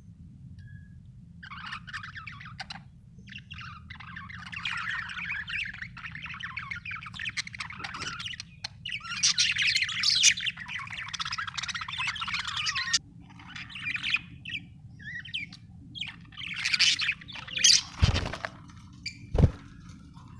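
Budgerigars chirping and chattering in a busy, rapid warble that thins to scattered calls after about 13 seconds. Two sharp knocks near the end, over a steady low hum.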